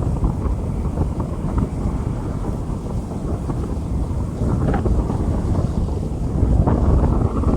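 Rain falling on a street under a steady, heavy low rumble, with a few sharper splashes about halfway through and again near the end.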